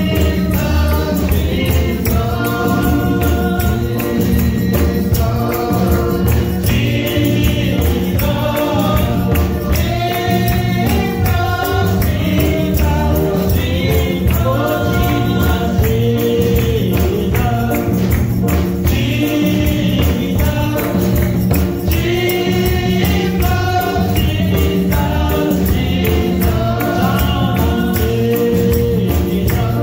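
Gospel music: voices singing over a steady beat with a shaking tambourine.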